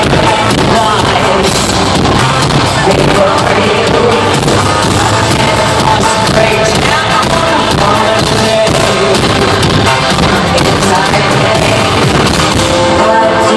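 Loud live pop concert music from an arena sound system, with singing over it.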